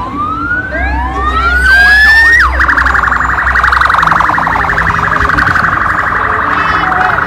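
Electronic vehicle siren: a rising wail that climbs for about two and a half seconds, then switches abruptly to a fast warbling yelp that carries on.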